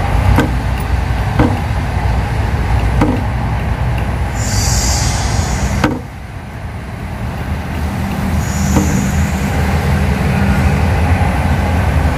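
Steady low engine rumble, like a motor vehicle running close by, with two short hisses in the middle and a few faint clicks.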